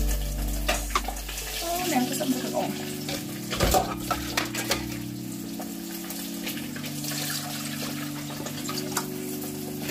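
Kitchen handling sounds, scattered clicks and knocks of utensils and a steel pot on the counter, over background music with held notes that change every few seconds.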